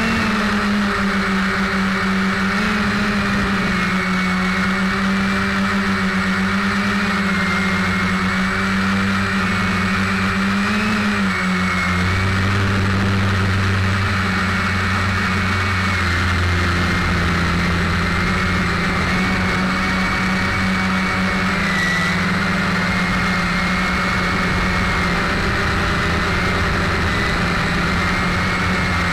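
Quadcopter's electric motors and propellers buzzing steadily, heard from on board, with the pitch wavering and stepping up and down as the throttle changes in flight.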